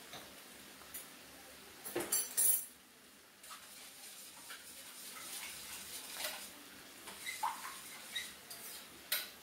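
Metal kitchen utensils clinking and clattering against cookware, loudest in a quick cluster of clatters about two seconds in, with scattered lighter clinks after.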